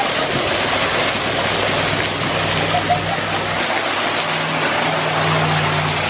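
Small waterfall pouring over a rock ledge into a shallow pool, a loud, steady rush of falling water heard from right behind the curtain of water. A low steady hum joins about two seconds in.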